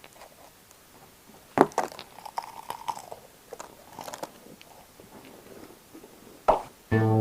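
Biting and chewing a hard, crunchy Shanxi tea pastry (chashi biscuit), with a sharp crunch about one and a half seconds in, crackly chewing after it, and another crack near the end. Guitar music starts just at the end.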